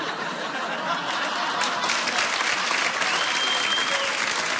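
Studio audience applauding, a dense steady clatter of clapping that builds about a second in.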